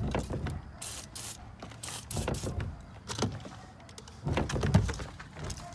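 The driver door of a 2005 Dodge Ram 1500 being worked on its hinges, which have just been sprayed with lube to stop them squeaking. The sound is irregular clicks and knocks, with a few short hissing bursts in the first couple of seconds and heavier knocks near the end.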